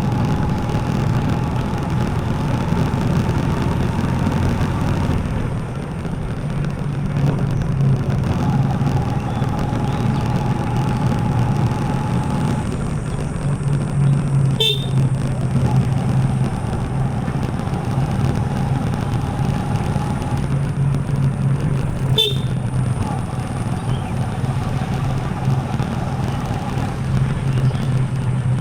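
TVS Apache RTR 4V motorcycle's single-cylinder engine running steadily while riding, with a fainter higher steady tone that sounds four times for a few seconds each and a few short sharp clicks.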